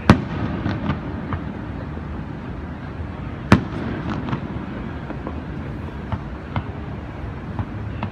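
Aerial fireworks shells bursting at a distance: a loud boom right at the start and another about three and a half seconds in, with several smaller pops scattered between them.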